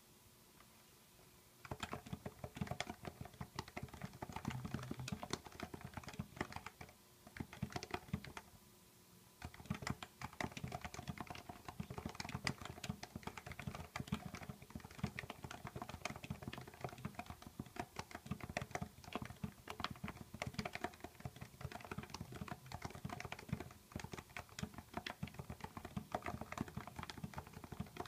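Typing on a Happy Hacking Keyboard Professional whose 45 g Topre switches are lubricated with Krytox 103: a fast, continuous run of keystrokes that begins about two seconds in and breaks off for about a second a third of the way through.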